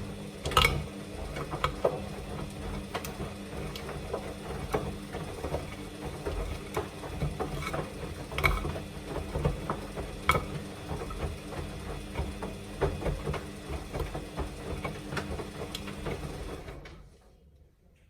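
Samsung washing machine drum turning during a quick 30° wash: a steady motor hum with irregular clicks and knocks, cutting off near the end.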